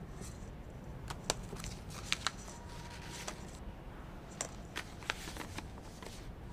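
Scattered light clicks and rustles of a plastic draw ball being handled in a glass draw bowl, some clicks louder than others.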